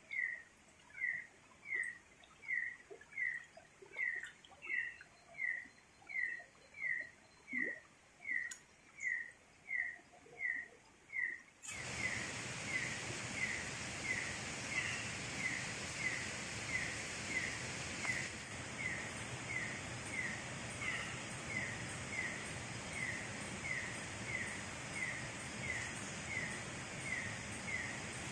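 A night animal's short falling call, repeated evenly about twice a second. About twelve seconds in, a steady hiss of background jungle noise sets in abruptly and stays under the calls.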